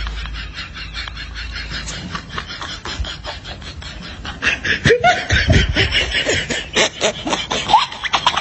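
Snickering laughter, a rapid run of short laugh pulses that grows louder and squeakier about halfway through, with quick falling pitch glides.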